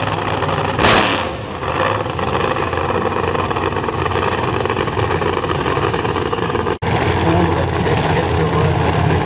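Supercharged drag-racing engine running steadily, with one loud rev surge about a second in. The sound drops out briefly near 7 s, then the engine sound carries on.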